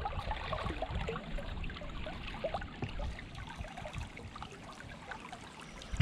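Creek water flowing and babbling, with many small gurgles over a steady rush.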